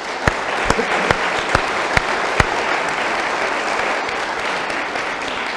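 Audience applause, with one person's hand claps close to the microphone standing out at about two a second for the first two and a half seconds.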